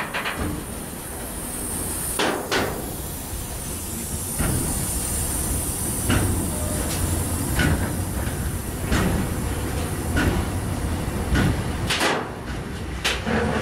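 Container freight train rolling past close by: a steady low rumble of the wagons with sharp clanks about every one to one and a half seconds.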